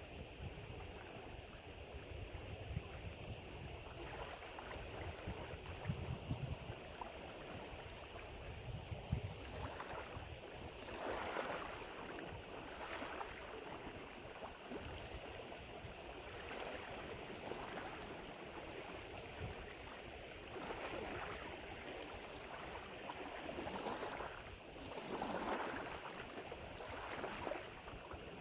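Wind buffeting the microphone with a low rumble. From about a third of the way in, small waves wash and lap at the lake shore in repeated swells every second or two.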